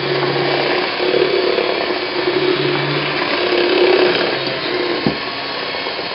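Handheld electric mixer running steadily, its twin beaters whirring through chocolate brownie batter in a stainless steel bowl, with a single knock about five seconds in.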